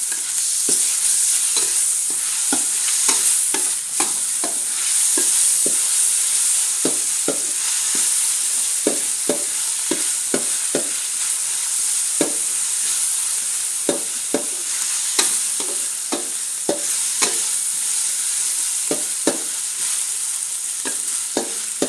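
Spice paste sizzling as it is fried in oil in a pan, with a utensil scraping and tapping against the pan irregularly as it is stirred.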